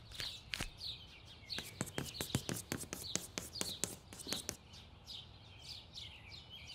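Small birds chirping in quick, short, downward-sliding calls, several a second, with a run of light sharp clicks over the first four seconds or so.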